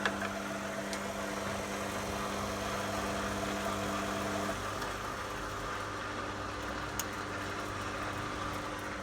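Washing machine drain pump running dry on a drain cycle with a steady electric hum. The higher part of the hum drops out about halfway through, with a sharp click near the start and another about seven seconds in.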